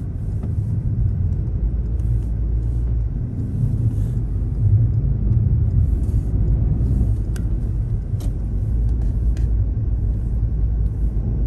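Car driving on a snowy road: a steady low rumble of engine and road noise, with a couple of faint short clicks about a second apart in the second half.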